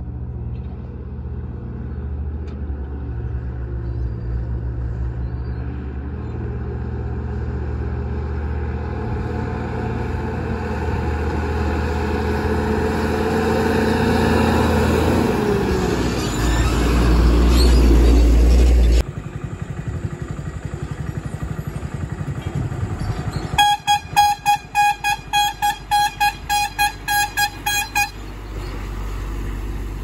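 Heavy diesel truck engine running, growing louder to a deep rumble and then stopping abruptly. A vehicle horn then sounds in a quick run of about a dozen short toots, roughly three a second.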